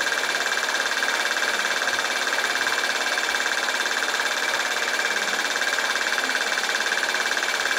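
Steady hiss, even throughout, with no distinct sounds standing out from it.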